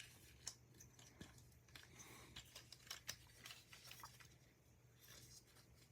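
Faint, scattered clicks and taps of plastic action-figure parts being handled and folded, over a quiet room with a low hum.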